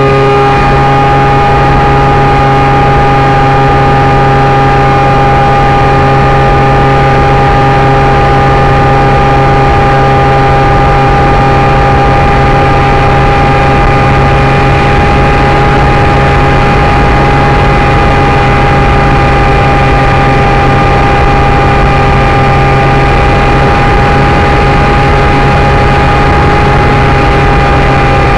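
Electric motor and propeller of a Parkzone Icon RC seaplane, picked up by a camera mounted on the plane: a loud, steady whine held at constant throttle in flight, over a steady hiss of rushing air.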